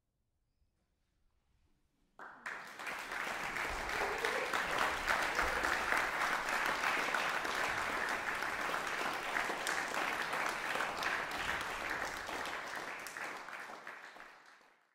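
After about two seconds of near silence, audience applause breaks out suddenly and keeps going steadily, then fades out near the end.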